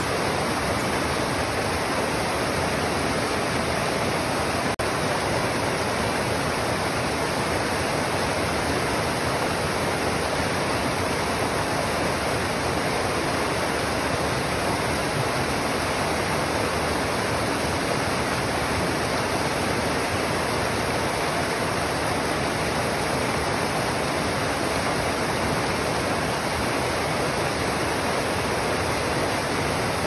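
Small mountain creek cascading steeply over rocks: a steady, unbroken rush of white water.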